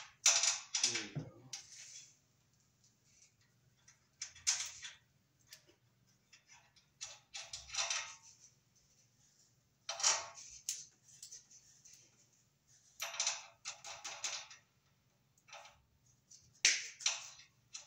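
Side cutters snipping the sharp edges off cut MC cable armor: short bursts of crisp metal clicks and snips, about every three seconds.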